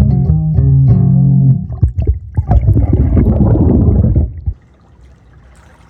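Waterproof gourd banjo played half-submerged and heard through an underwater microphone: plucked notes ring out, then a burst of dense, muffled noise about halfway through that cuts off suddenly, leaving only a low background.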